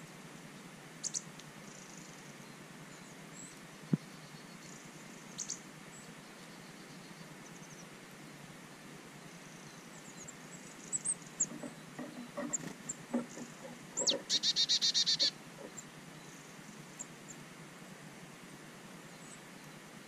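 Small songbirds calling: short high chirps about a second in and again at five seconds, then a fast trill of rapid high notes at about fourteen seconds. A scatter of soft knocks comes just before the trill.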